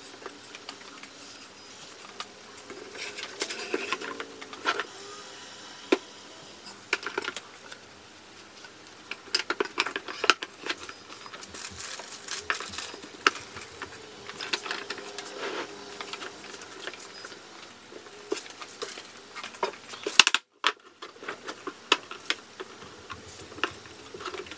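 Thin maple boards and wax paper being handled and set into a clamping frame: scattered knocks, taps and clicks of wood on wood and against the plastic clamp parts.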